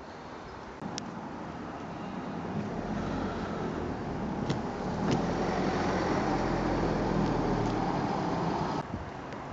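Steady vehicle noise with a low hum, growing louder over several seconds and cutting off abruptly near the end, with a few sharp clicks over it.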